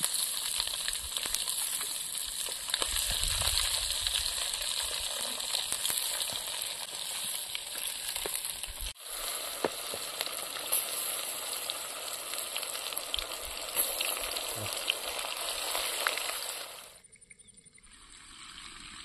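Masala-coated fish pieces sizzling as they deep-fry in hot oil in a steel kadai: a steady, dense hiss with small sharp pops. It breaks off briefly about halfway and stops near the end.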